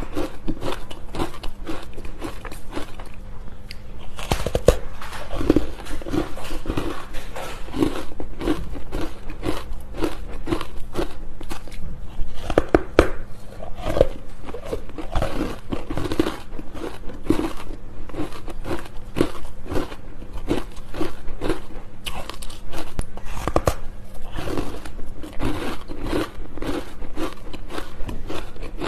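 Fluffy ice being bitten and chewed close to the microphone: a continuous run of squeaky, crackly crunches, with a few sharper bite snaps along the way.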